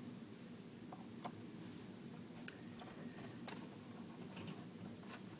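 Scattered small clicks and light metallic ticks from a screwdriver and the tiny screws being taken out of a MacBook Pro's bottom case, several coming close together around the middle, over a steady low hum.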